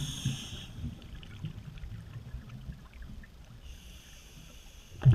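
Scuba regulator breathing heard underwater: a hissing inhalation near the start and again in the last second or so, with a low rumble between, and a loud burst of exhaled bubbles right at the end.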